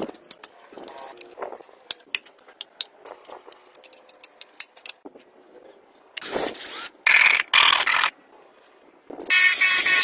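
Light plastic clicks and taps as PVC model parts are handled and pinned together. Then come three short loud rushing bursts, and near the end a longer loud whirring rush: an electric drill running with a PVC part on its spindle and sandpaper held against it.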